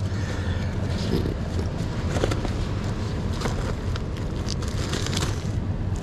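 Items being handled and shifted around on a car seat: scattered light knocks and rustles over a steady low rumble.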